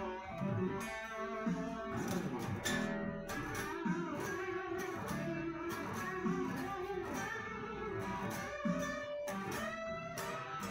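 Shelter Nashville Les Paul-style electric guitar playing an improvised lead line: a steady run of picked single notes one after another.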